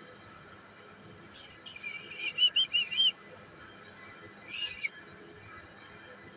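A bird calling: a quick run of about five high, arching chirps, then one more short call a second and a half later.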